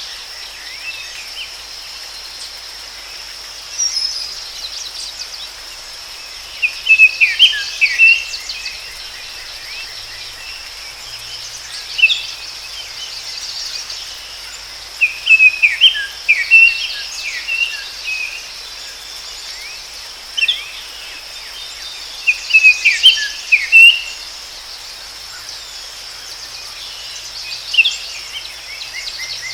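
Forest ambience: a steady high insect drone, with short phrases of bird song breaking in every few seconds.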